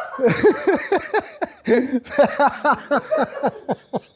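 A man laughing hard: a long run of rapid 'ha' pulses, about four a second, each falling in pitch.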